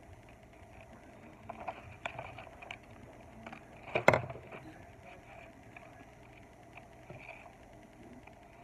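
Scissors snipping through a sheet of white paper, with the paper rustling as it is turned. There are irregular small snips and crinkles, and one sharp, louder noise about four seconds in.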